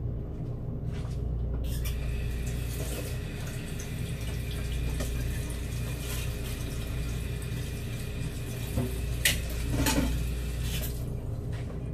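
Kitchen sink tap running, with water splashing into the sink. It comes on about two seconds in and stops near the end, with two sharp knocks shortly before it stops.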